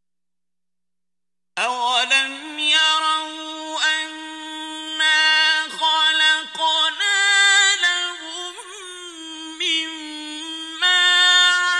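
A male voice reciting the Qur'an in the ornamented mujawwad style, unaccompanied, drawing out long held notes that waver and slide in pitch. It begins after dead silence about a second and a half in.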